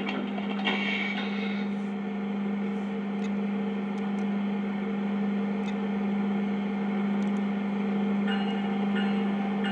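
O gauge model train running: a steady hum with a few faint clicks.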